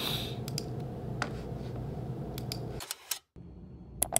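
Scattered clicks of laptop keys and trackpad over a steady low room hum. About three seconds in the sound cuts out briefly, and a quieter steady background follows with two sharp clicks near the end.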